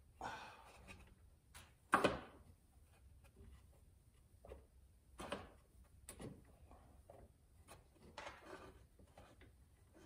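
Faint, intermittent clicks and scrapes of an Allen key being worked on the ignition switch mounting screws under a motorcycle dash, with one sharper metal click about two seconds in.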